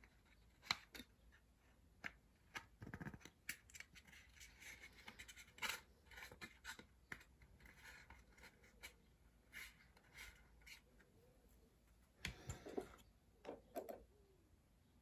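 Faint, scattered clicks and scratches of small plastic model-kit parts being handled and pressed together: a glued door brace being set into an HO scale boxcar's plastic body shell.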